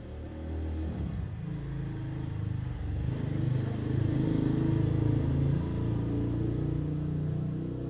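A motor vehicle engine running with a low rumble, growing louder around the middle and easing off near the end, like a vehicle passing by.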